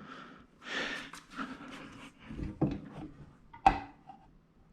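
Knocks and scraping of a heavy plotter unit being handled and set down onto its stand's metal locating studs, with one sharper knock near the end.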